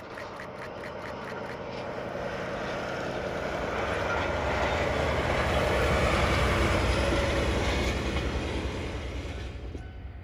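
DE15 Russell-type snowplow diesel locomotive passing while plowing: a deep engine rumble and a rushing hiss of snow pushed aside that swell to a peak about two-thirds of the way through and then fade. A quick, regular clicking of wheels over rail joints, about three a second, is heard in the first two seconds.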